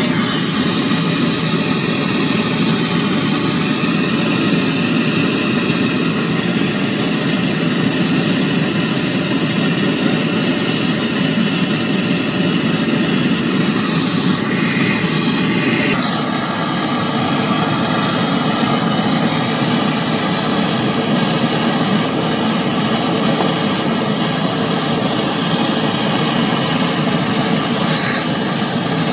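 Gas brazing torch flame hissing steadily while heating a copper pipe joint on a refrigerator compressor. Its tone shifts about halfway through.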